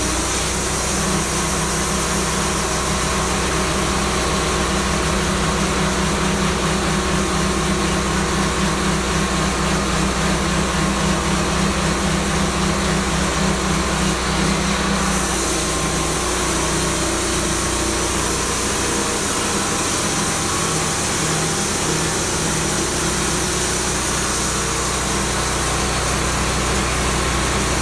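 Engine of a petrol-powered sawmill running steadily and evenly.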